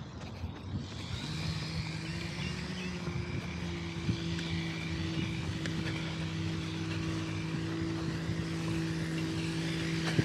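A motor running steadily at one unchanging pitch, starting about a second in, over a rushing background noise.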